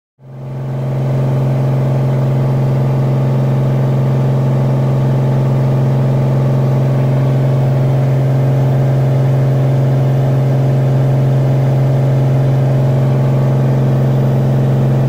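Cirrus SR22's six-cylinder Continental piston engine and propeller running steadily at about 2,000 RPM, heard from inside the cockpit. It is a constant drone with one strong low tone, fading in over the first second.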